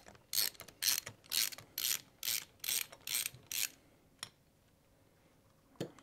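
Socket ratchet clicking in a steady run of back-and-forth strokes, about two a second, as a bolt on the top of a Braaap ST250 cylinder head is undone. The strokes stop a little before four seconds in, with a couple of faint clicks after.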